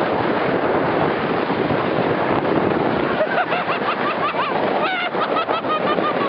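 Water rushing and spraying under knee boards towed fast behind a boat, with wind. From about three seconds in, a run of short, high-pitched calls rises over the noise.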